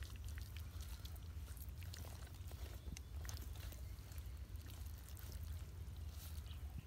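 Faint wet squishing and scattered small ticks of hands rubbing a thick masala paste into a whole raw chicken, over a steady low hum.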